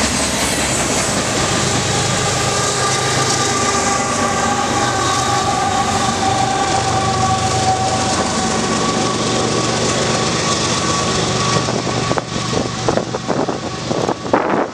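Union Pacific manifest freight train rolling away around a curve: a steady rumble of wheels on rail, with wheel squeal held in several steady high tones that fade out about two-thirds of the way through. Irregular sharp knocks follow near the end.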